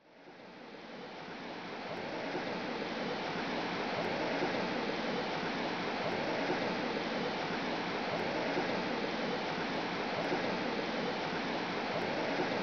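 A steady rushing noise, fading in over the first two seconds and then holding level.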